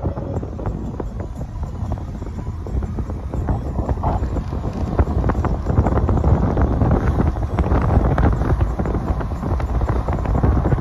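Wind buffeting the microphone of a phone held in a moving vehicle, over a steady low road and engine rumble.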